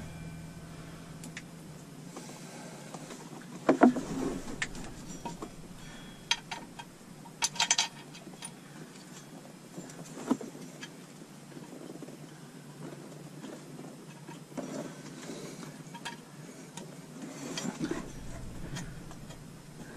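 Scattered light metal clicks and knocks as bolts are started by hand into a replacement water pump on a marine V8's engine block. There is one sharper knock about four seconds in and a quick rattle of clicks near eight seconds, over a steady low hum.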